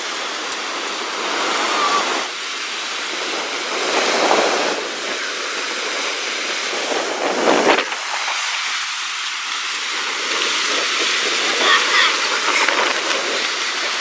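Surf of a rough, stormy sea breaking on a sandy beach: a steady rush of waves, swelling briefly about four seconds in and again at seven and a half seconds.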